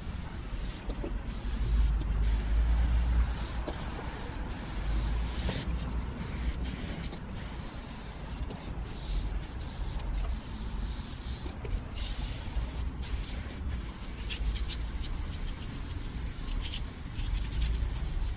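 Aerosol spray paint can hissing as it sprays paint onto a wall, in bursts of varying length with many brief breaks. A low rumble runs underneath.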